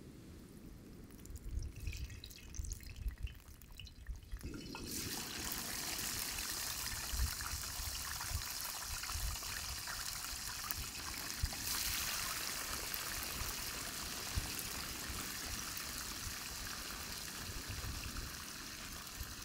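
Hot oil in a cast-iron skillet over a campfire, sizzling as raw potato fries go in without being dried off. It crackles faintly at first, then about five seconds in a steady sizzle starts suddenly, with fine crackling. It swells louder a little past the middle as more fries are added.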